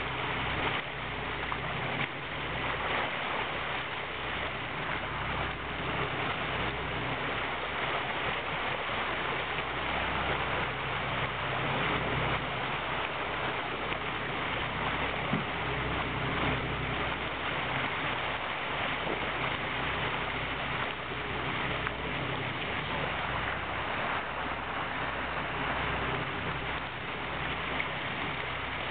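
Steady rush of water churning in a moving boat's wake, over the low, even hum of the charter boat's engine running at trolling speed.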